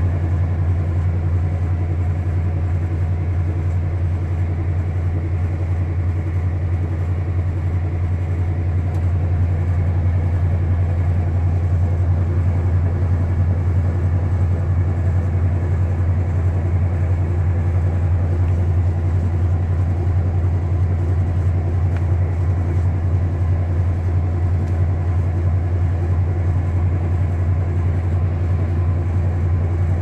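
Kenmore top-load washing machine running with its agitator turning: a steady low motor hum that holds even throughout.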